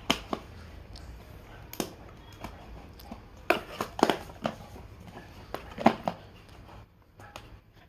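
Handling noise from a cardboard smartphone box and its shipping carton: scattered short taps, scrapes and rustles as the box is slid across the carton and picked up, busiest around the middle and again about six seconds in.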